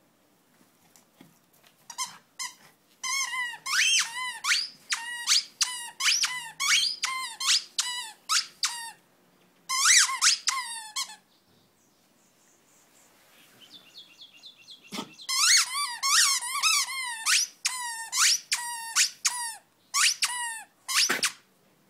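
Dog's squeaky toy squeaking over and over as a Jack Russell terrier pup chews on it. The squeaks come in quick runs: a long burst, a pause of about three seconds, then another run.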